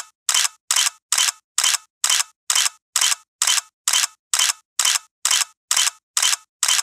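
Camera shutter firing over and over at a steady pace, about two clicks a second, with dead silence between the clicks.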